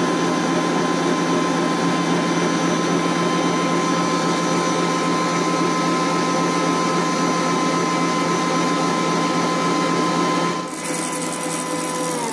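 Electric stand mixer running steadily, its wire whisks beating thick divinity candy until it loses its gloss, with a steady motor whine. The sound drops a little shortly before the end, and the whine starts falling in pitch at the very end as the motor winds down.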